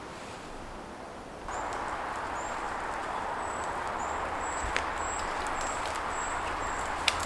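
Steady outdoor hiss that gets suddenly louder about a second and a half in. Over it, a small bird repeats short, thin, high calls, and there are a couple of sharp clicks.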